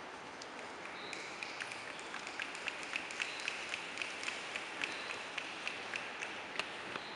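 A quick series of light clicks, about four a second, over a faint high steady tone that comes and goes.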